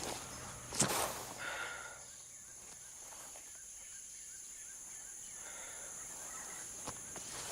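Quiet outdoor ambience with a steady high-pitched hiss and faint chirps, and a single footstep-like thud about a second in.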